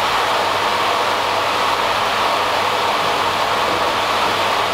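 Small electric pump running steadily with a low mains hum and a rush of liquid, circulating an acid rinse through a stainless fermenter to clean it.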